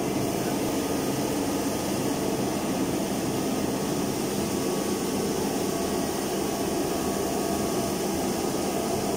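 Supersound wide-belt wet sanding machine running with a steady, even noise as a WPC door panel feeds through it.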